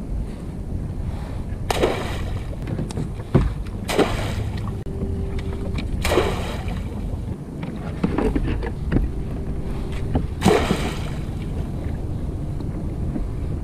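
Crab pots and their ropes splashing into the sea beside a kayak: several brief splashes, one about six seconds in as a pot hits the water, over a steady low rumble.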